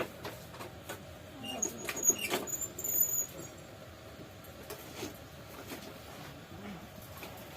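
Birds chirping in short, high squeaks about two to three seconds in, among scattered light clicks and knocks.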